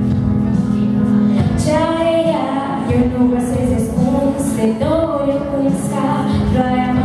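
A girl singing a Romanian folk song into a microphone over amplified instrumental backing; held backing notes alone at first, with her voice coming in about one and a half seconds in.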